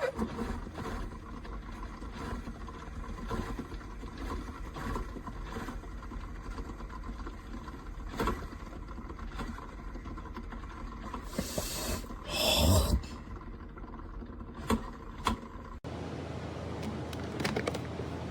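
Scattered clicks and small knocks over a steady low hum, with a louder rustling hiss about twelve seconds in.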